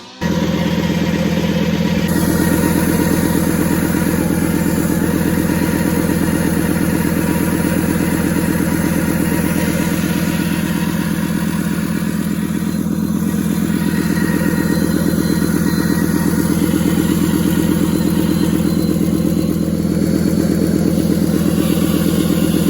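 Toyota 1PZ five-cylinder diesel with an aftermarket turbo, running steadily. The brand-new turbo has failed and is blowing oil out the exhaust and into the boost pipe.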